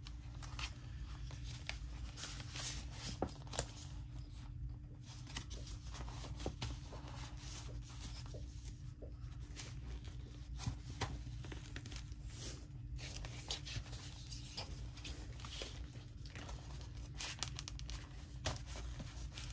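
Paper and craft materials being handled by hand: scattered soft rustles, small taps and clicks throughout, over a steady low hum.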